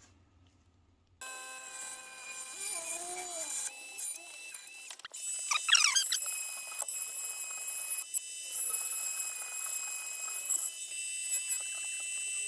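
A small power tool runs with a steady, high-pitched whine while cutting and shaping a clear acrylic (Perspex) part. It starts about a second in, with brief wavering and rising tones over it early on and again around the middle.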